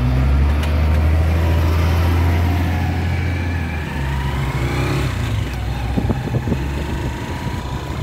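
A motor vehicle's engine running close by as a steady low drone, which drops back about four seconds in. A few short knocks come about six seconds in.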